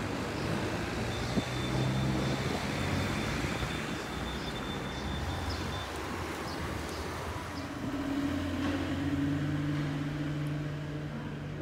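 Road traffic: vehicle engines humming as they pass, over a steady background noise, with a louder engine hum swelling about eight seconds in.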